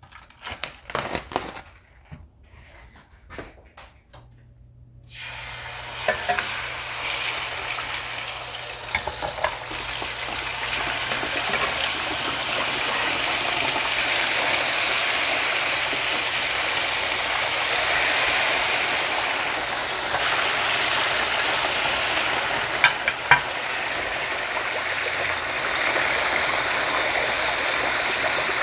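Marinated pork ribs frying in a pan of hot oil: a steady, loud sizzle that starts suddenly about five seconds in as the ribs go into the oil, after a few light clicks and knocks. A few more sharp clicks of the tongs come near the end.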